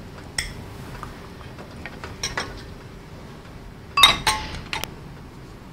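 Metal kitchen utensils and dishes clinking: a few separate clinks, with a louder cluster of them about four seconds in.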